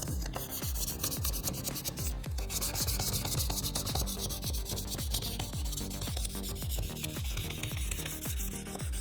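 Abrasive paper rubbed back and forth on a hardened Damascus steel knife blade in quick, steady strokes: hand sanding through fine grits up to 2000 to ready the surface for ferric chloride etching.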